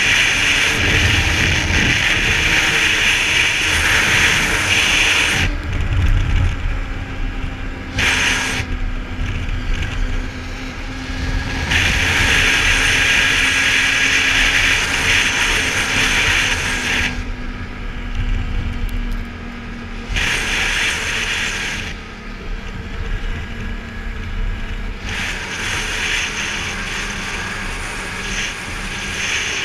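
Snowmobile running at speed over snow, heard from the rider's seat: a steady low engine drone under a high hiss that swells and drops away several times.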